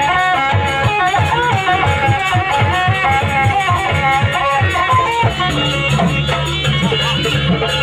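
Live Jaranan ensemble music: a wavering, ornamented melody over fast, evenly repeating drum beats. About five seconds in, the low part changes to a steadier, denser drumming pattern.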